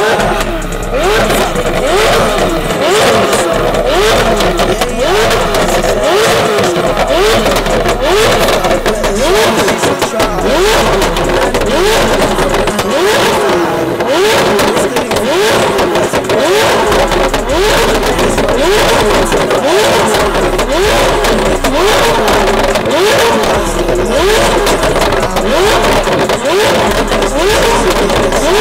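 McLaren's twin-turbo V8 through a straight-piped custom exhaust, revved over and over at a standstill, the revs rising and falling in quick succession.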